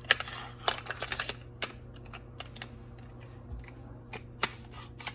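Metal parts of a Benelli Super Black Eagle 3 shotgun clicking and knocking as they are handled and pushed back into place, a quick run of clicks in the first second and a half, then a few single ones.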